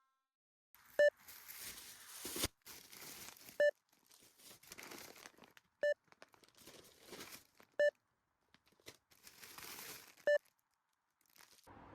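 Crinkling and rustling handling noise in stretches that start and stop abruptly, with a short beep about every two seconds, five beeps in all.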